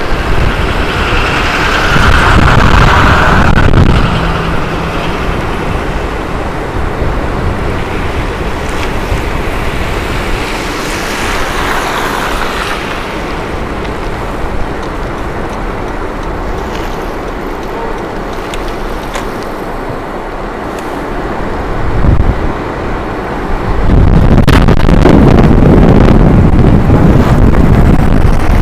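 Wind rumbling on the microphone of an electric kick scooter on the move. It is heavy for the first few seconds, eases off through the middle, and picks up again for the last few seconds.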